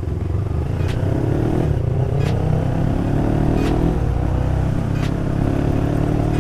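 Motorcycle engine pulling up through its revs twice, pitch rising and then holding steady, with a few brief clicks.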